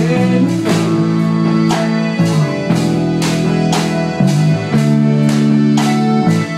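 Recorded music with held guitar chords and a steady beat, with a child's small drum kit and cymbal being struck along to it, about two hits a second.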